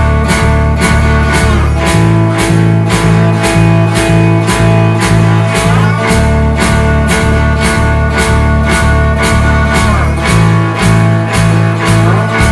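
Electric blues band playing an instrumental passage: guitars over bass and drums with a steady beat of about two strikes a second. The chords change about every four seconds, and a guitar slides in pitch into each change.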